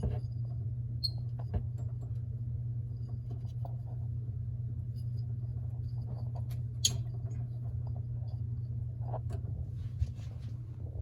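Small clicks and squeaks of faucet supply-line fittings being hand-tightened under a kitchen sink, the sharpest click about 7 seconds in, over a steady low hum.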